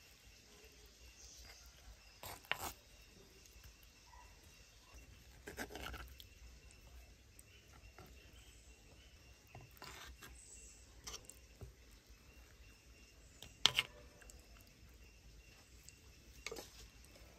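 A ladle scooping curry and knocking and scraping against an earthenware dish: a few scattered soft clicks and wet scoops, with one sharper clack about three quarters of the way through. A faint steady high tone sounds in the background.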